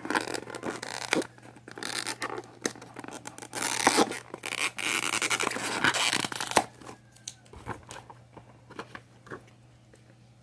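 Packaging being rustled and torn open by hand to free a teething necklace, with crackles, scrapes and clicks; the handling dies down after about seven seconds to a few faint ticks.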